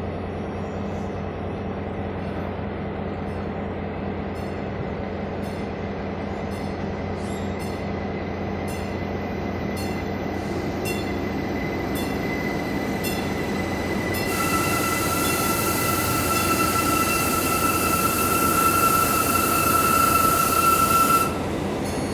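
A train rolling by with a steady rumble and regular clicks, then a high, steady wheel squeal with a rushing hiss that grows louder in the latter third and cuts off abruptly near the end.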